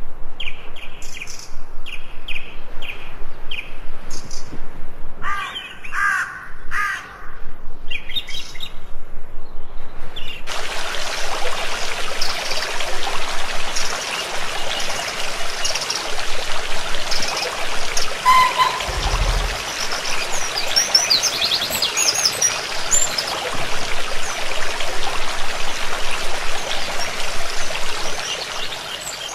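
Birds calling, short chirps repeated about once a second with a few harsher calls among them. About ten seconds in it cuts to the steady rush of a shallow stream flowing in a stone channel, with birds still chirping over it.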